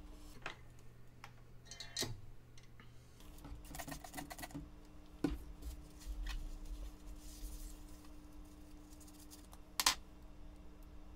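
Small clicks, taps and scrapes of tools and parts being handled on a workbench, with sharper knocks about two, five and ten seconds in, over a faint steady hum.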